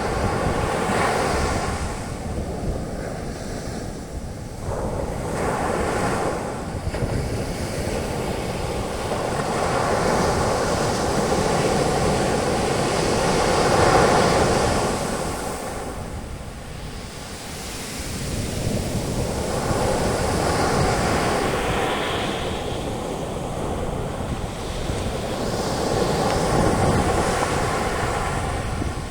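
Ocean waves breaking on a beach and washing up as foam, the surf swelling and ebbing every few seconds, with wind on the microphone.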